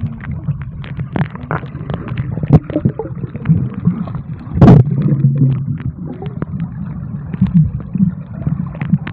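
Underwater sound picked up by a camera submerged in a river: a muffled low rumble with gurgling and scattered clicks and knocks, and one louder sharp burst a little under five seconds in.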